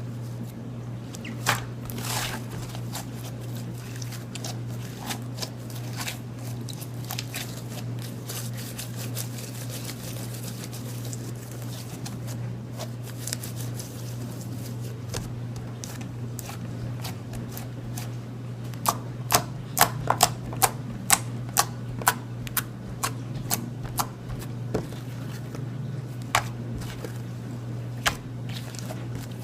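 Sticky slime being squished and pulled by hand, giving irregular clicking and popping sounds, with a quick run of sharp pops about two-thirds of the way through. A steady low hum sits underneath.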